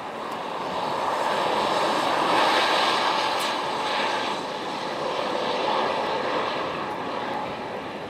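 A tractor-trailer passes close by on the snow-covered interstate: its engine and tyre noise swells over a couple of seconds and then slowly fades, over steady wind noise.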